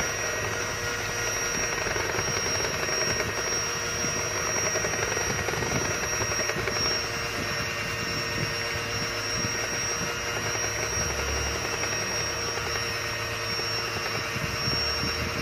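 Electric hand mixer running steadily, a continuous motor whine as its twin beaters whip a chocolate mousse mixture in a glass bowl.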